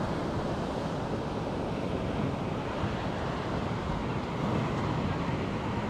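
Steady sea surf with wind blowing on the microphone, a continuous rushing noise heaviest in the low end.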